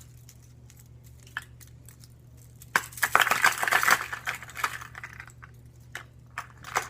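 Fishing lures and a plastic tackle box being handled: scattered light clicks, with about a second and a half of dense rattling and rustling near the middle.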